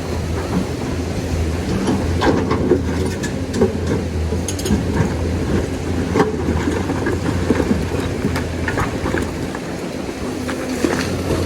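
Lonking excavator's diesel engine running steadily under load, with scattered clanks and knocks of stones and metal as it works in the riverbed.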